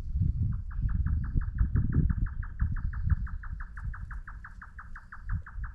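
A bird's rapid, evenly paced trill of short falling chirps, about six a second, starting about half a second in, over a low rumble.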